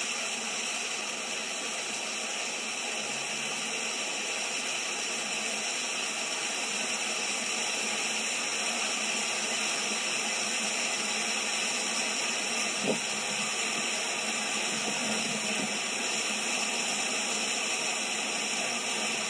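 A steady hiss of noise, even throughout, with a single short click about thirteen seconds in.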